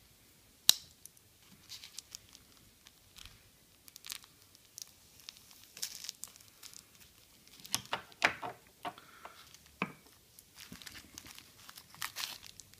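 A paper letter envelope being torn open and handled, irregular crinkling and tearing of paper, with one sharp click about a second in.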